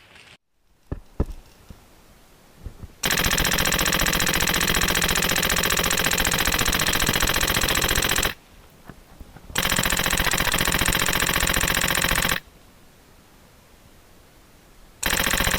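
HPA-powered airsoft gun firing three long full-auto bursts, a rapid even rattle of shots: about five seconds, then about three seconds, then a shorter burst of a second and a half near the end.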